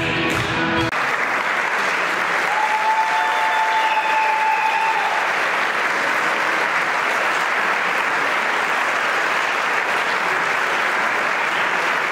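The last of a piece of music cuts off about a second in, and a concert audience applauds steadily. About two seconds in, a single held high tone sounds over the clapping for a couple of seconds.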